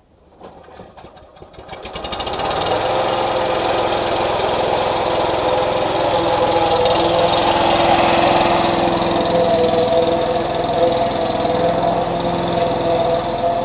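Lawn mower starting up: its sound builds from about half a second in and reaches a steady, loud running speed by about two seconds, then runs on evenly while the mower is pushed over grass.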